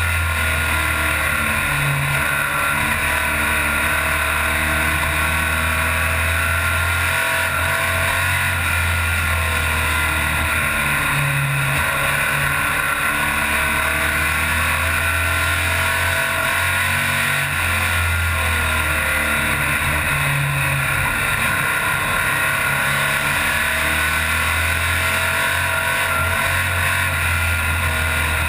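Stock car's engine heard from inside the cockpit, running loud and steady, with the revs rising and falling in a repeating cycle every several seconds, over constant road and wind noise.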